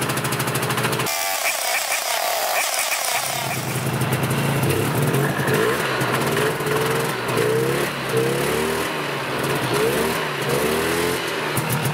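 Yamaha Bravo 250 snowmobile's single-cylinder two-stroke engine idling, then revved up and down in a string of quick throttle blips before settling back to idle; its carburetor has just been cleaned to cure bogging under throttle.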